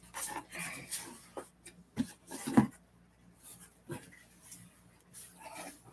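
Paper and cardboard packaging being handled as items come out of a shipping box: rustling with a handful of short taps and knocks, the sharpest about two and a half seconds in.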